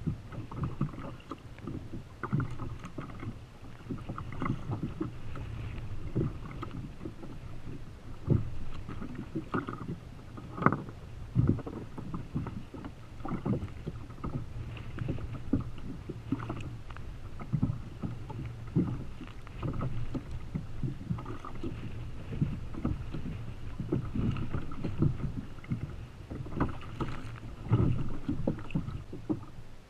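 Choppy sea water slapping and knocking against the plastic hull of a Feel Free Lure 13.5 fishing kayak: irregular slaps and thumps over a steady wash of water and wind.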